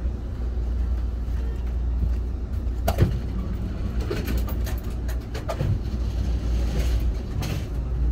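Amtrak passenger car rolling slowly, heard from inside the cabin: a steady low rumble with a few sharp clunks, the loudest about three seconds in.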